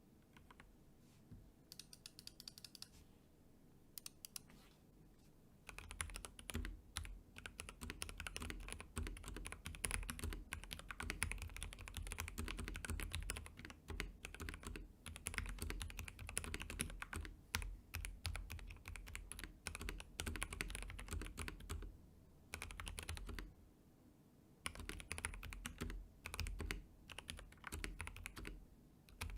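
Typing on an FL Esports FL750 mechanical keyboard fitted with Gateron G Pro Yellow linear switches. A few scattered keystrokes come first, then steady fast typing from about six seconds in, with a short pause about three-quarters of the way through.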